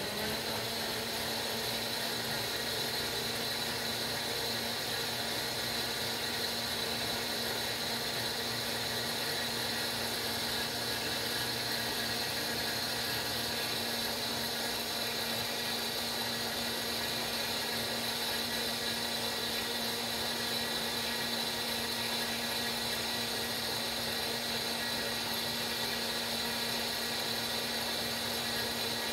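KitchenAid K400 blender running its smoothie program, its motor holding one steady speed as it pulverizes almonds and strawberries in water.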